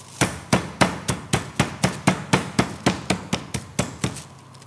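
Metal meat mallet pounding a chicken breast thin through plastic sheeting on a wooden cutting board, flattening it for escalope. A quick, even run of about seventeen thuds, roughly four a second, that stops shortly before the end.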